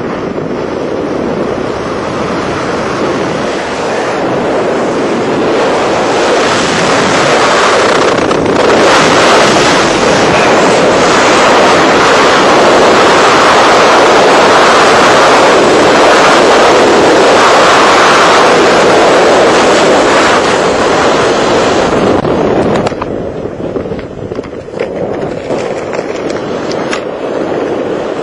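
Freefall wind rushing over the skydiver's camera microphone after stepping off a hot air balloon: with no forward speed at exit, the wind noise builds over roughly the first ten seconds as he accelerates and then stays loud. It drops off sharply about 23 seconds in as the parachute opens.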